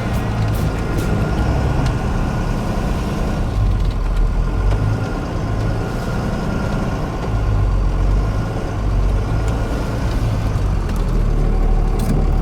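Vehicle engine running as it drives slowly along, a steady low rumble.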